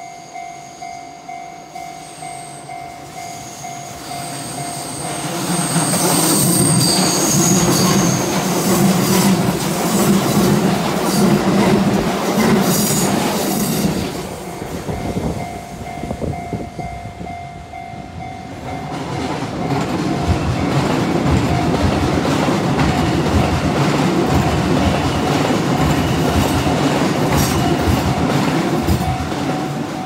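Japanese level-crossing warning bell ringing in quick repeated strokes while Shin-Keisei electric trains, 8800 series, pass on the curve. Two trains go by one after the other with a lull between, their wheels clattering over the rail joints and briefly squealing as the first one passes.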